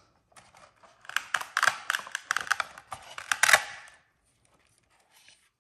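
A quick run of sharp plastic clicks and rattles as a 1/24-scale Axial SCX24 Dodge Power Wagon RC truck is handled and its plastic body is opened off the chassis. The clicks start about a second in and last about three seconds.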